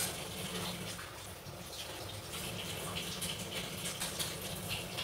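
Breadcrumbs rustling and scraping faintly on a plate as hands roll a bread-wrapped stuffed chilli in them, over a steady low hum and hiss.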